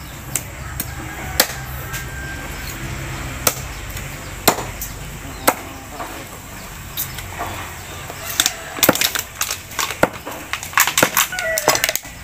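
Knife chopping: single chops spaced a second or more apart, then a quicker run of chops in the last four seconds.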